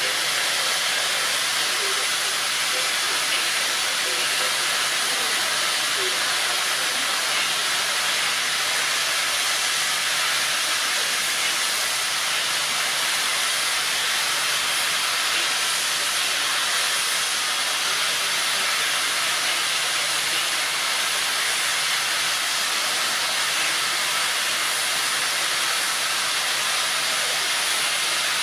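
Steam locomotive standing still and hissing steam, a loud, steady, even hiss with no chuffing.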